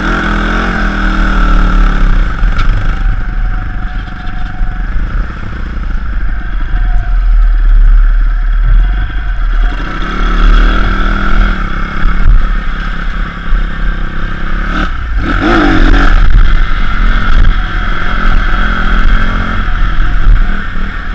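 A pit bike's small single-cylinder engine running as it is ridden, rising in pitch as it accelerates several times. Heavy wind rumble buffets the helmet-mounted microphone.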